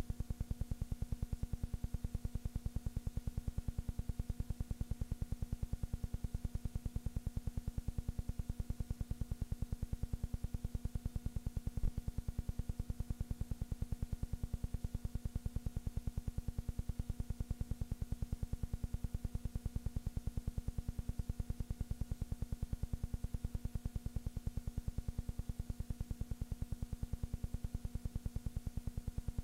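A steady low hum with a fast, even pulsing and no sound from the game itself, with one brief click about twelve seconds in.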